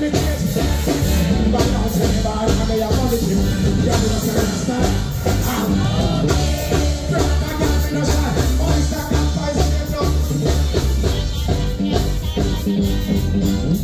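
Live band playing a dancehall riddim loud through the PA, with heavy bass, a steady drum beat and a voice singing over it.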